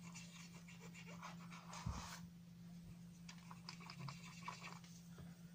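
Quiet handling at a workbench: faint ticks and scratches as probe tips and fingers touch the circuit board, over a steady low hum, with one soft breath about two seconds in.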